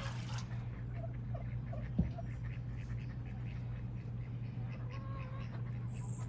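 Ducks quacking now and then, a few short calls scattered through, over a steady low hum. A single sharp knock about two seconds in.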